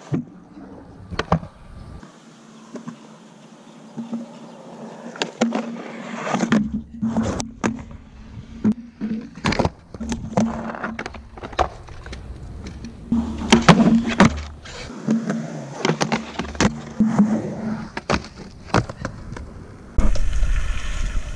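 Skateboard wheels rolling on concrete, broken again and again by sharp clacks of the board popping and landing. Near the end the sound changes to a steady low rumble.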